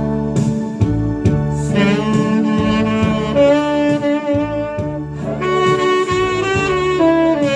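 Tenor saxophone playing a slow ballad melody in long held notes, some with vibrato, over an accompaniment of bass and a steady drum beat.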